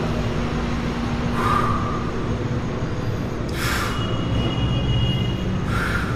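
A man breathing out hard three times, about two seconds apart, in time with the reps of a seated dumbbell shoulder press. A steady low rumble runs underneath.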